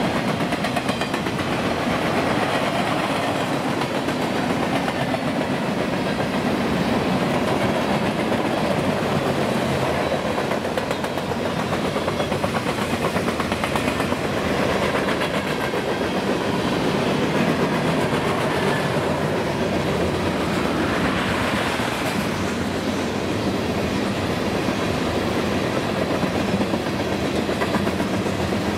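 Mixed freight train cars (covered hoppers, boxcars, tank cars) rolling past: a steady rumble of steel wheels on rail with clickety-clack over the rail joints.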